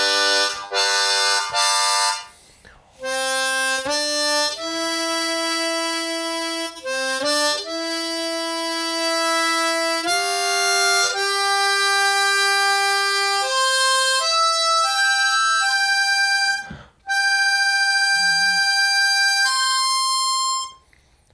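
Seydel 1847 Lightning diatonic harmonica played to check its tuning: three short chords, then a run of single held notes at changing pitches. A few notes are slightly off, which the player puts down to the harmonica's compromise tuning.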